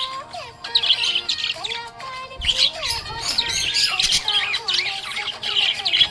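Budgerigar chirping continuously in quick, high chirps and squawks, over background music with a melody.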